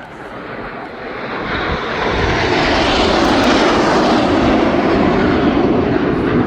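Red Arrows BAE Hawk T1 jets, each with a Rolls-Royce Turbomeca Adour turbofan, flying past. The jet noise swells to a loud rush about two seconds in and holds before easing slightly near the end.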